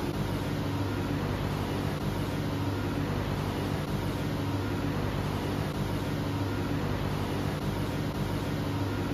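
A steady low machine hum with an even hiss over it, unchanging throughout, like a running fan or ventilation unit.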